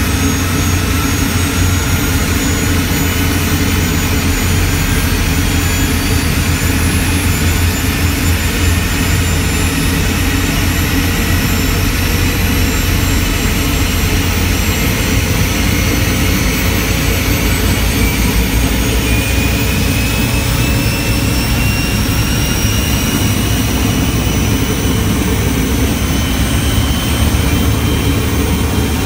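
Schweizer 333 helicopter's Rolls-Royce C20W turboshaft running after its start, a turbine whine rising slowly in pitch over a steady low rumble as the engine spools up.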